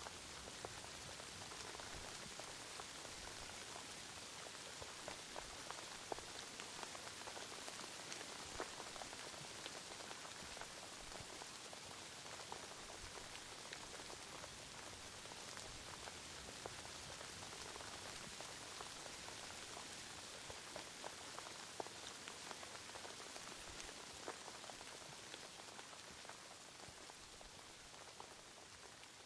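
Steady rain falling, an even hiss with scattered individual drops ticking through it, easing off slightly near the end.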